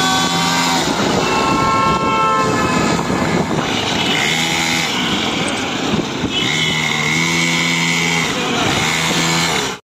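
Small 49cc petrol engine of a mini dirt bike running as it is ridden, its revs rising and falling. The sound cuts out suddenly for a moment near the end.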